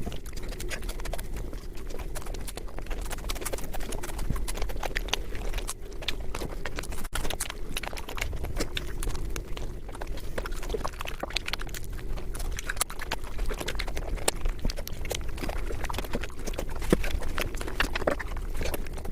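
Wet mouth and hand sounds of eating panta bhat, soaked fermented rice, in a dense run of rapid clicks and smacks over a low hum.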